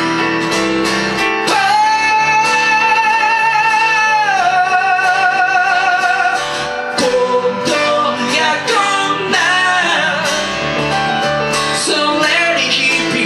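A live band plays a song: a male singer holds a long note with vibrato, steps down to a lower note about four seconds in, and carries on singing over acoustic guitar, piano and bass.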